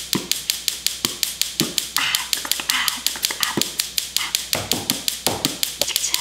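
Gas stove burner's electric igniter clicking rapidly and evenly, about six or seven clicks a second, while the burner fails to light. Beatboxed mouth sounds come in over it now and then.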